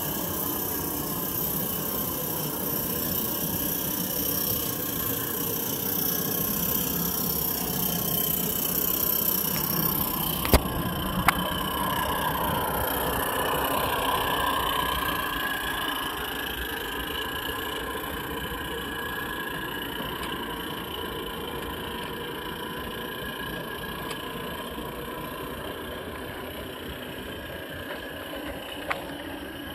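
Garden-scale model train running past: a long rake of wagons rolling on the track behind a live-steam locomotive. The running noise swells as the train comes close and slowly fades as it moves away, with two sharp clicks about ten seconds in.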